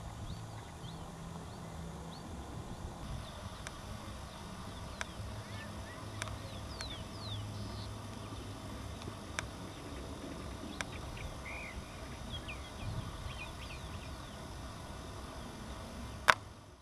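Outdoor field ambience: a steady low rumble with many short high chirps, a few sharp clicks scattered through, and one loud click near the end.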